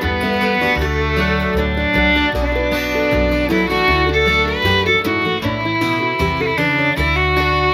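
Background music: a fiddle-led bluegrass-style instrumental with guitar and steady bass notes.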